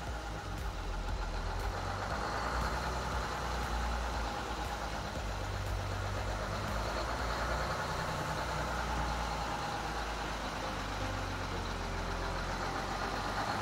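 Detroit Diesel 6-71 turbocharged two-stroke inline-six marine diesel running steadily.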